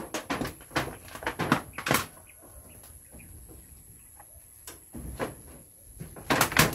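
Sharp knocks and cracks from kapok tree branches and fruit pods being worked by hand, several in the first two seconds, a few fainter ones in the middle, and a loud cluster near the end.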